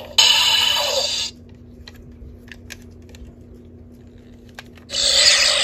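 Electronic sound effects from the Power Rangers Lightning Collection Master Morpher's built-in speaker: a noisy burst lasting about a second at the start and another with a sliding sweep about five seconds in. Between them come small plastic clicks from the toy being handled and its coin turned.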